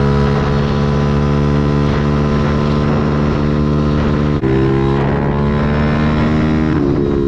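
Pit bike's single-cylinder engine running at steady revs while being ridden. There is a brief dip in the sound about four and a half seconds in, and the engine note shifts near the end.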